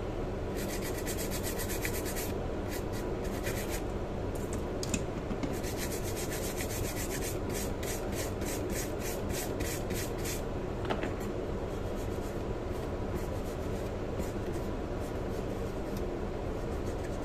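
A small brush scrubbing a laptop motherboard with thinner in quick, repeated scratchy strokes for about ten seconds, then softer rubbing, cleaning rosin flux residue off the board.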